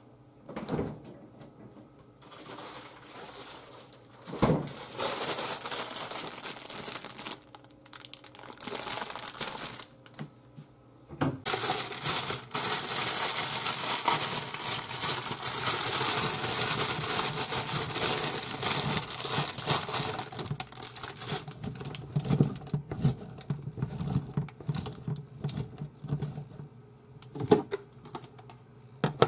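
Plastic packaging crinkling and rustling in long stretches, with a sharp knock about four seconds in. In the last part, bean sprouts are packed by hand into a plastic steaming basket with an uneven rustle and clatter.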